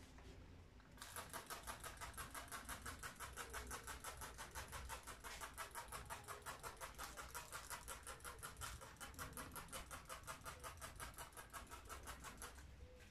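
A cloth in a gloved hand rubbed quickly back and forth over a painted surface: a faint, even rhythm of rubbing strokes, about four or five a second. It starts about a second in and stops near the end.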